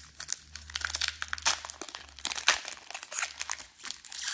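Foil wrapper of a trading-card pack crinkling and tearing as it is ripped open by hand: a dense run of sharp crackles, loudest about a second and a half and two and a half seconds in.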